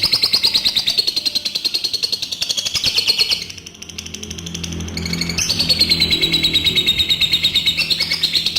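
Adult lovebird's long 'ngekek' song: a loud, high, rapid chattering trill of about ten notes a second, in two long bouts with a short break around the middle.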